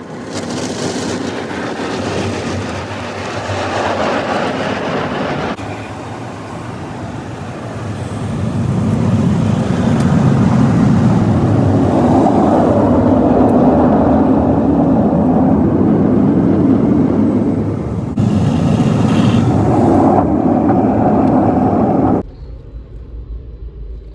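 Drive-through automatic car wash running, heard from inside the car: a loud rushing noise that changes several times as the wash moves through its stages, then cuts off abruptly near the end.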